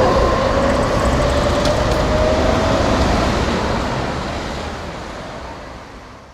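Street traffic noise with a car passing close, a low rumble and a faint whine in the first few seconds. It fades out steadily over the last few seconds.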